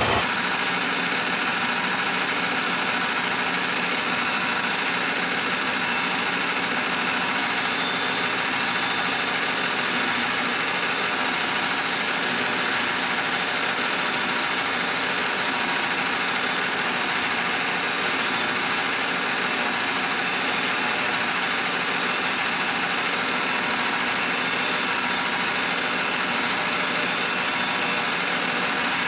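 Milling machine cutting across the flange face of an old cast-iron turbo manifold, spindle and cutter running steadily as the table feeds the part along. The pass is facing the warped flange flat.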